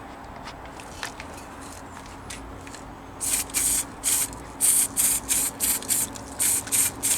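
An aerosol spray can giving about a dozen short hissing squirts, starting about three seconds in, as a coating is sprayed onto a car body panel before welding.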